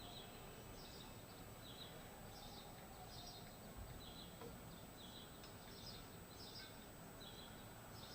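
Near silence: faint room tone with small high chirps repeating about once or twice a second, like a bird calling.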